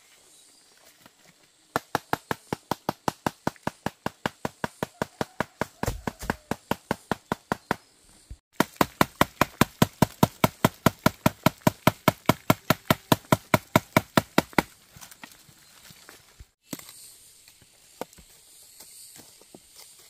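Rapid, even chopping: a blade striking repeatedly at about five strokes a second, in two runs of about six seconds each, the second run slightly louder.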